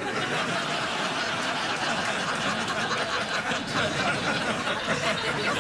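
Studio audience laughing, a steady crowd laugh that holds for several seconds in reaction to a punchline.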